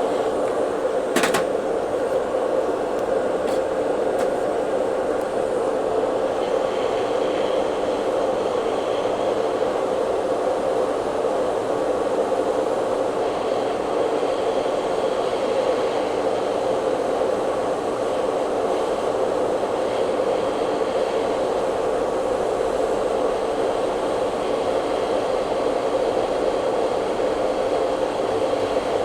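Fume extractor fan running steadily, an even rush of air, with a single click about a second in.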